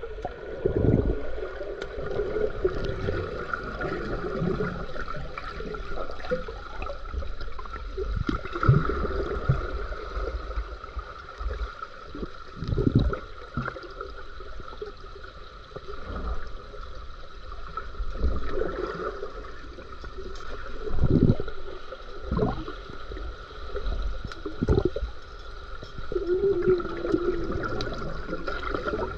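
Swimming-pool water heard from below the surface: irregular, muffled surges of water movement every second or two, over a steady high hum.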